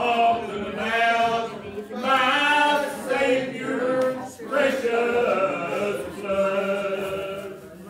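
Unaccompanied singing with long held notes and short breaths between phrases, with no instruments.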